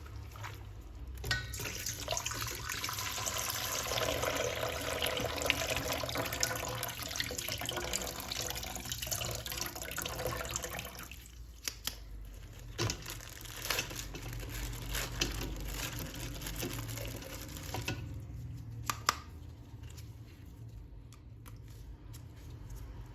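Water running from a tap and splashing in a sink as a toy action figure is washed. It is heaviest in the first half and lighter later, with a few sharp knocks and clicks of handling.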